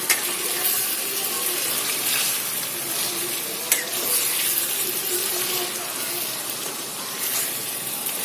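Chicken pieces sizzling steadily in oil in a pan as the last of their juices cook off, with a couple of sharp clicks.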